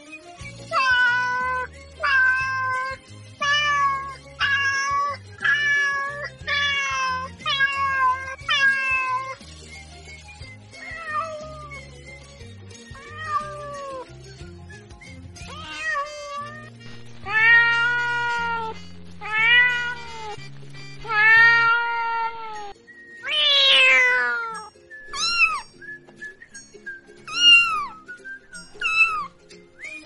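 Cats meowing over and over. A run of about eight short meows, roughly one a second, gives way to fainter calls, then several longer, louder meows, one of them falling steeply in pitch, and ends in short high-pitched cries.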